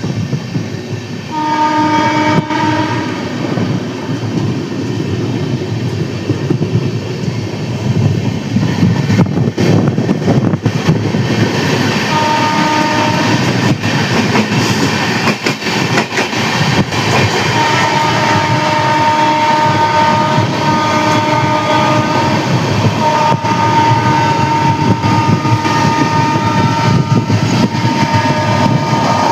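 Indian Railways express train running past, its wheels rumbling and clattering over the track. The locomotive horn sounds briefly near the start and again around the middle, then in long, repeated blasts through most of the second half.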